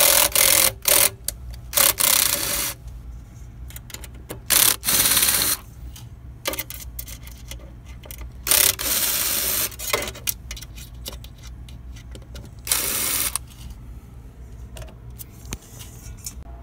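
Cordless electric screwdriver running in about five short bursts of a second or so, backing screws out of a 3D printer's metal case. Small clicks and rattles of screws and parts come between the bursts.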